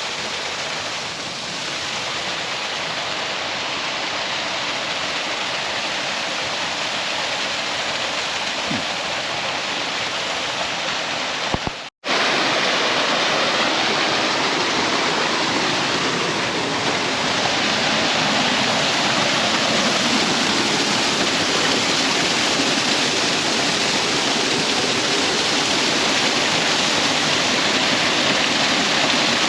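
Waterfall: a steady rush of falling water. It cuts out for an instant about twelve seconds in and comes back a little louder.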